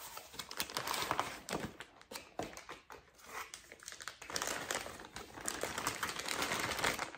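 Cardboard parts box being opened, then a plastic bag crinkling in irregular rustles as the rear-view mirror inside is pulled out and handled.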